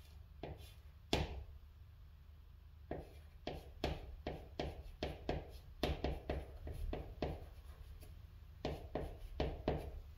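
Chalk writing on a chalkboard: a quick run of short taps and scratchy strokes as characters are written one stroke at a time, coming in bursts with brief pauses between.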